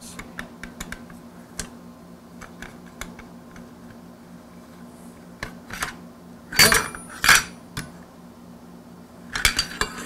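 Steel barrel of the Pancor Jackhammer combat shotgun being rotated and slid out of its barrel jacket: scattered light metal clicks, then two loud ringing metal clinks about two-thirds of the way in, and another cluster of clinks near the end.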